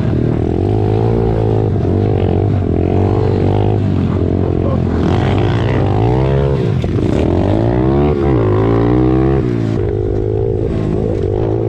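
Pit bike engines running and revving, the pitch climbing and dropping again and again. The revving is strongest in the middle, then settles to a lower, steadier running note near the end.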